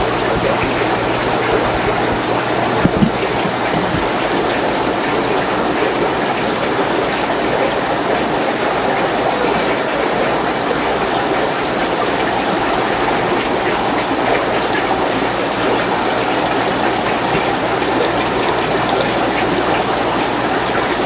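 Steady rushing and bubbling of aquarium filters and air-driven sponge filters in a room full of fish tanks, with a faint steady low hum underneath.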